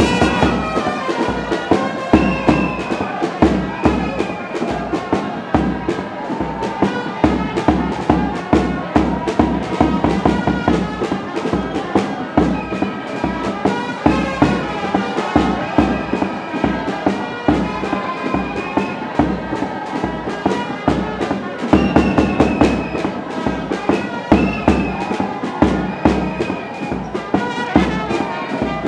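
Music with a steady, quick drum beat and a melody line over it.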